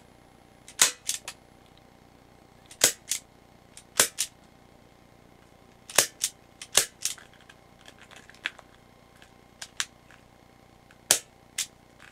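Marushin Taurus Raging Bull gas airsoft revolver (8mm BB, live cartridges) firing about six sharp pops at uneven intervals, each followed quickly by one or two fainter clicks. A few lighter clicks come in a lull a little past the middle.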